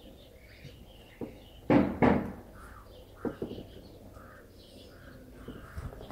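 Two loud thumps close together about two seconds in, then a lighter knock a second later, over faint, short, high chirps.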